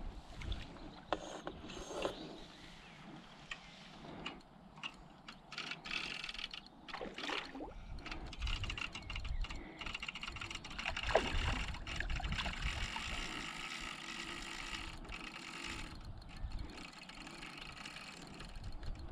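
Fishing tackle being handled: scattered clicks and knocks, with a steadier whirring stretch through the middle and the loudest click a little past halfway.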